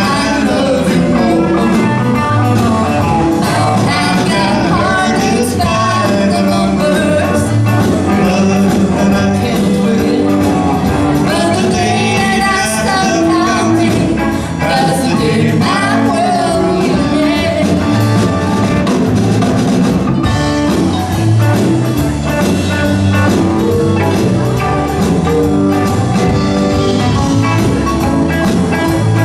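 Live band playing a song: a woman singing lead into a microphone over electric guitar, keyboard and drum kit, with a steady beat.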